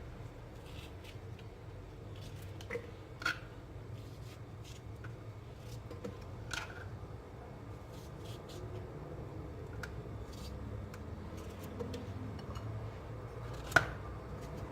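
A kitchen knife cutting cucumber: scattered soft cuts and taps, with one sharper knock near the end, over a steady low hum.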